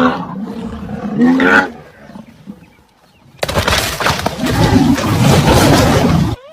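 Animal calls: two pitched, cry-like calls in the first two seconds. After a lull, a loud, rough noisy sound runs for about three seconds and stops abruptly near the end.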